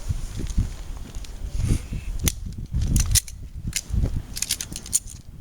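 Pistols being loaded along a firing line: a scatter of sharp metallic clicks and clacks as magazines are seated and slides racked, mostly in the second half. Low wind buffeting on the microphone underneath.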